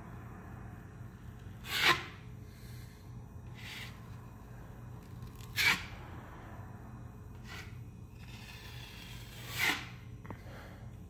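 Small drywall knife scraping joint compound across a wall patch: three louder strokes about four seconds apart, with fainter ones between, over a steady low hum.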